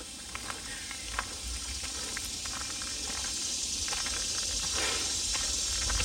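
Footsteps crunching on a trail of dry leaves and gravel, with scattered irregular clicks over a steady hiss that grows gradually louder.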